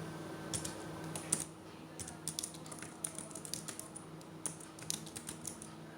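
Typing on a compact Bluetooth keyboard: irregular runs of light key clicks.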